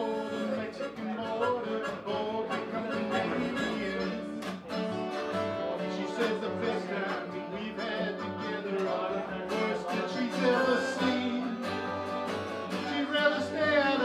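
Small acoustic band playing an instrumental passage: two acoustic guitars, plucked upright bass, and a harmonica played into a microphone, its wavering notes on top.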